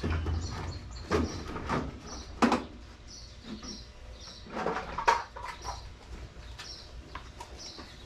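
Hard plastic knocks and clatter of cordless drill chargers being lifted off a metal toolbox, a handful of them, the sharpest about two and a half and five seconds in. A bird chirps steadily behind, about twice a second.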